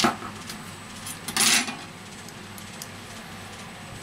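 Handling noise from a partly disassembled smartphone on a silicone repair mat: a sharp click at the start, then a brief scraping rattle about a second and a half in as the phone is picked up, over a steady low hum.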